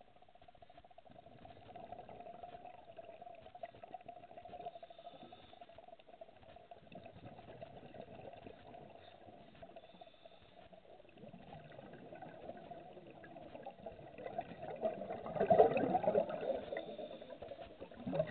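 Underwater sound picked up through a dive camera's housing: a muffled steady hum over low water noise, swelling near the end into a louder, uneven rushing and bubbling.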